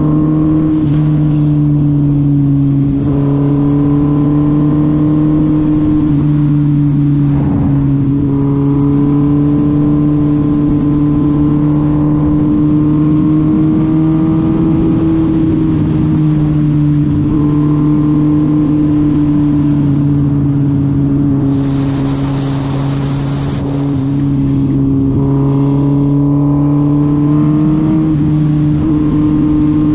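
2020 Suzuki Hayabusa's 1340 cc inline-four engine running at a steady cruise, its pitch holding nearly level with slight rises now and then. A brief burst of hiss comes about two-thirds of the way through.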